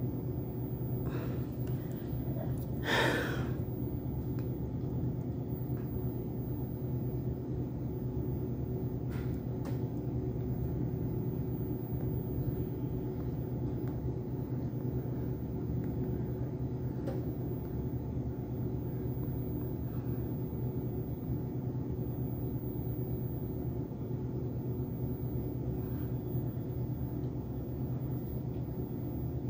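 Steady low background hum of the room, with a short breathy whoosh about three seconds in and a few faint clicks later on.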